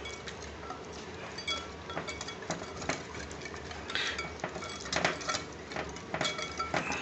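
A utensil clinking and scraping against a glass bowl while stirring a thick marinade: irregular light clinks, some with a short ring.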